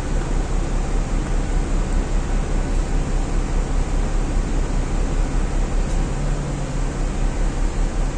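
Dennis Dart single-deck bus's diesel engine running, heard inside the passenger cabin: a steady low rumble with even road and air noise over it. A hum comes in about six seconds in.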